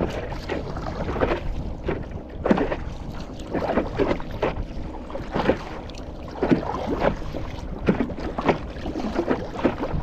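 Paddle strokes in seawater from a stand-up paddleboard: the blade dipping and pulling, splashing about once a second, over wind buffeting the microphone.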